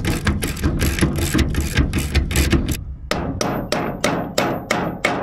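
Hammer tapping bolts through a boat's motor pad. A quick run of strikes, about four a second, comes first; then, after a short pause, steadier single blows about three a second, each with a short ring.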